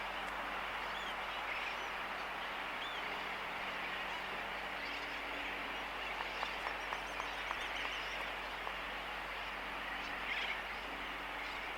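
Laysan albatross colony close up: a quick run of about six bill clicks a little past halfway, over a dense, continuous chorus of distant sooty terns, with a steady low hum underneath.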